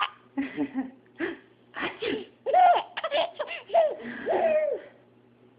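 A baby laughing in a run of short, breathy bursts that break off about five seconds in.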